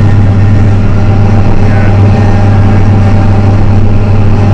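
Tractor engine and a trailed Elho Cobra 7710T forage harvester running together, heard from inside the tractor cab as a loud, steady low drone.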